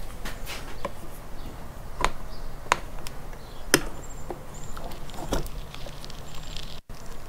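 Scattered clicks and knocks of hard plastic and a screwdriver as the air cleaner housing of a Honda GC160 engine is worked and pried loose, with the breather hose still holding on to it.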